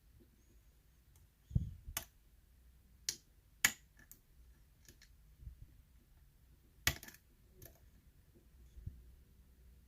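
A lock pick and tension tool working the pins of the Savage challenge lock during single-pin picking: light, sharp clicks and taps come irregularly, a second or more apart, with one dull knock about a second and a half in.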